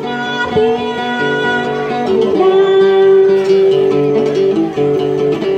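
Đàn tính, the Tày long-necked gourd lute, plucked in a then folk song, with a woman's voice holding long notes over it.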